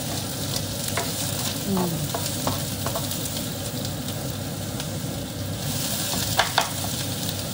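Chopped onions sizzling as they fry in oil in a hot non-stick frying pan, with the light scraping and knocks of a ladle stirring them. Two sharper knocks of the ladle on the pan come near the end.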